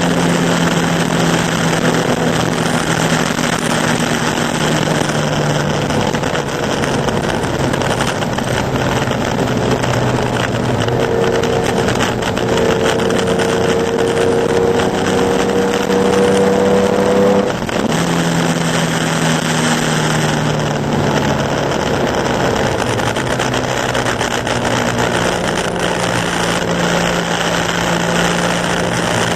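Porsche 911 2.0's air-cooled flat-six engine running hard at racing speed over a steady rushing hiss. Its pitch climbs slowly through one gear, then drops suddenly at a gear change about halfway through.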